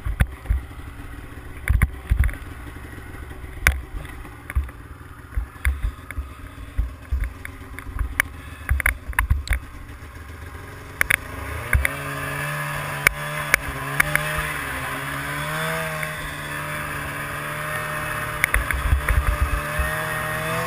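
Arctic Cat ZR 800 snowmobile's two-stroke engine ticking over with repeated sharp knocks and clatter. About eleven seconds in it is throttled up and runs louder under load, its pitch rising and falling as the sled moves off.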